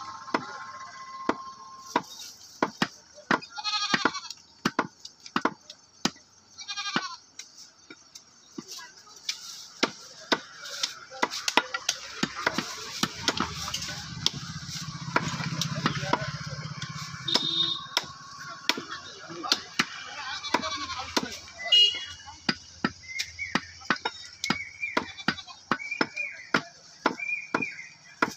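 Cleavers chopping goat meat on wooden log chopping blocks: a run of sharp, irregular chops, several a second at times.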